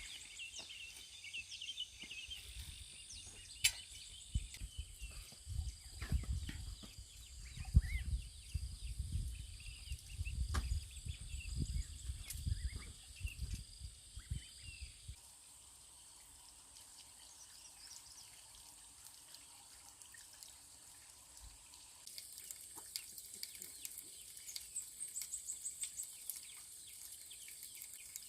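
Forest ambience of steady insect buzzing and scattered bird chirps, with a stretch of low rumbling and sharp clicks and knocks in the middle.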